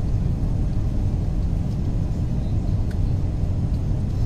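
Steady low rumble of an Airbus A350-941 passenger cabin on final approach with the landing gear down: engine and airflow noise heard from a window seat.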